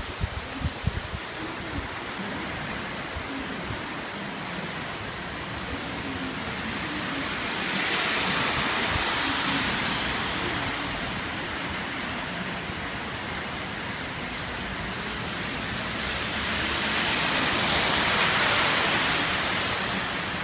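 Heavy typhoon rain pouring down, a steady hiss that swells louder twice.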